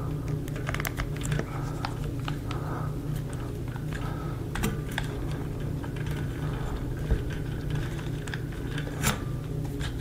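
Small irregular clicks and rattles of multimeter test probes and plastic wire connectors being handled among a ceiling fan's wiring, over a steady low hum.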